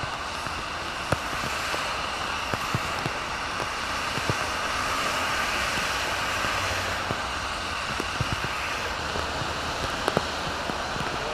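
Steady hiss of rain and of traffic on a wet road, tyres running through surface water, with scattered light ticks of raindrops. The hiss swells slightly about halfway through.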